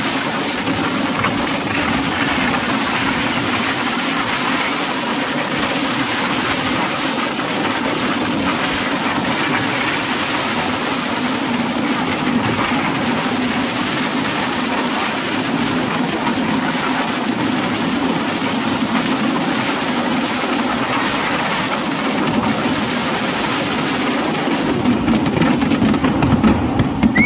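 Massed firecrackers of a Kerala temple fireworks display (vedikkettu) going off in a dense, unbroken barrage, the individual cracks merging into one steady din. It grows louder, with sharper cracks, near the end.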